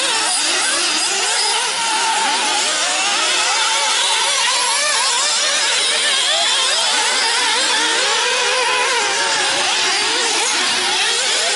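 Nitro RC buggy engines racing: several small glow-fuel two-stroke engines revving and easing off as the buggies lap the track, their pitches weaving up and down over one another.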